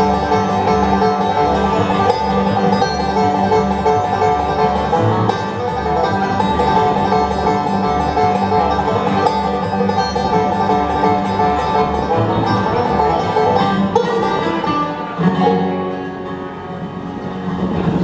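Live bluegrass band playing an instrumental break, banjo and guitar picking over a bass line of alternating low notes. The bass pattern drops out about fourteen seconds in and the tune winds down to a close.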